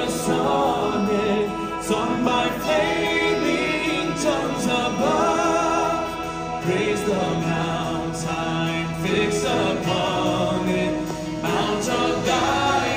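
Live contemporary worship music: a church worship band's singers singing into microphones over instrumental accompaniment, amplified through the sanctuary's sound system.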